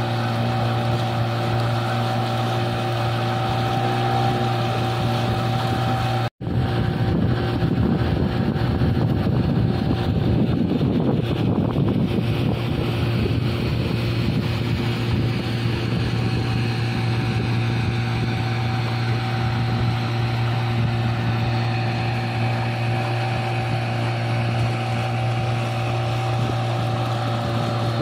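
Small 18 hp outboard motor on the towing boat running at a steady cruising speed, a constant hum, with wind and water rushing past. The sound cuts out for an instant about six seconds in, and the wind and water noise is heavier for a few seconds after.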